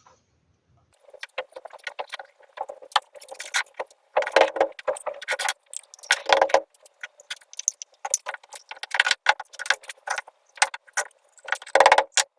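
An irregular run of light clicks, taps and rattles from hand tools and small workpieces being handled and set down on a bench, in bunches with short pauses between.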